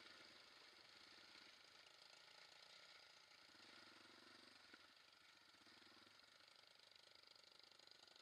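Faint quad bike engine running at low speed, its low pulsing note swelling and fading a couple of times over a steady hiss.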